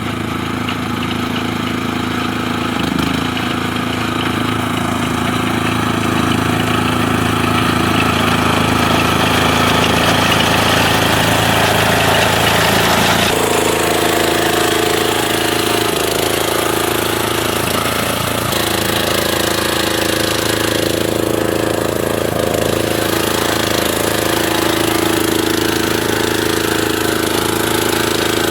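Engine of a rice reaper running steadily under harvesting, its pitch shifting slightly about 13 seconds in and again about 18 seconds in.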